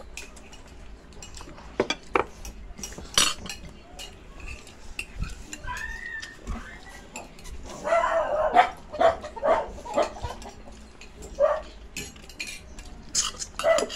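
Spoons and forks clinking and tapping on ceramic plates while eating, in scattered sharp clicks. A short run of high vocal sounds comes about eight seconds in.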